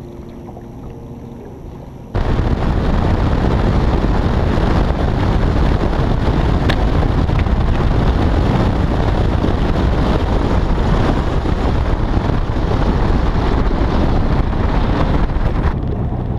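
Bass boat running at speed, its outboard engine and hull noise buried under heavy wind buffeting on the microphone: a loud, steady rush that starts abruptly about two seconds in, after a quieter low hum.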